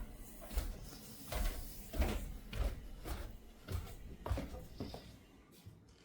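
A run of soft, dull thumps and knocks, about one every half second, dying away near the end.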